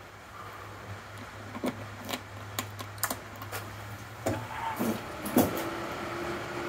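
Omtech Polar desktop laser cutter being switched on at its key switch: a series of sharp clicks, then about four seconds in a short machine whine, and a steady hum as the machine starts up.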